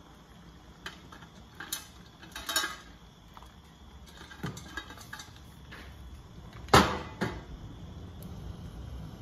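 Stainless steel colander clattering against a stockpot as crab legs are tipped out of it, a few light metal clicks and rattles, then one loud ringing metal clank a little before the end as the colander is set down, with a smaller knock just after.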